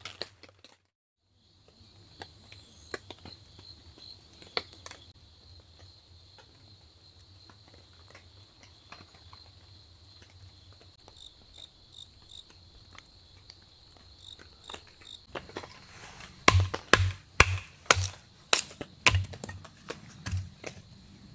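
Insects trilling steadily at a high pitch, with scattered small clicks. Near the end, footsteps come in close and loud, a step about every half second.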